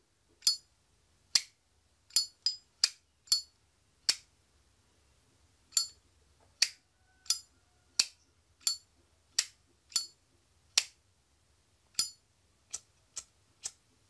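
Zippo lighter's hinged lid flipped open and snapped shut again and again: about nineteen sharp metallic clicks, irregularly spaced at roughly one or two a second.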